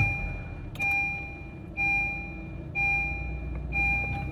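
Honda Vezel's seatbelt reminder chime dinging five times, about once a second, over the car's 1.5-litre four-cylinder engine starting and idling on its first start after a spark plug change.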